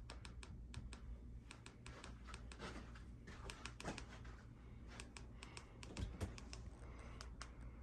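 Soft button clicks from a TV remote control, pressed in an irregular quick series to scroll through a menu, over a low steady room hum.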